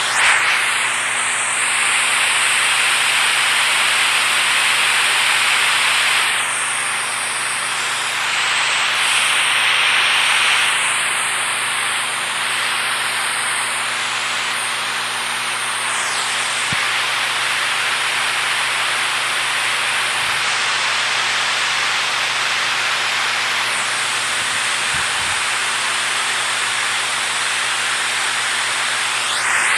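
Steady rush of water, an even hiss of noise with no distinct splashes.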